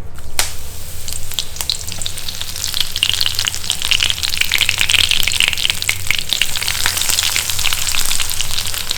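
Hot oil sizzling and crackling steadily in a chinachatti (Kerala iron wok), with crushed ginger and garlic frying in it. A single sharp knock sounds just after the start.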